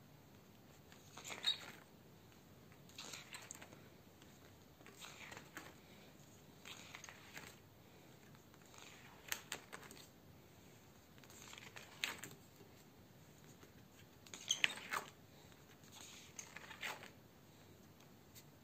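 Thick 300 g paper pages of a metal spiral-bound comic book being turned one after another by hand. Each turn is a short papery rustle and flap, about every two seconds.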